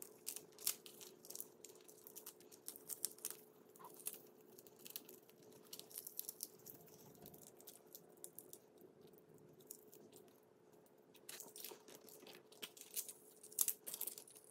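Dried chilies being broken open by hand, their brittle skins faintly crackling and crunching as the stems are snapped off and the seeds pulled out. The crackling thins out through the middle and picks up again near the end.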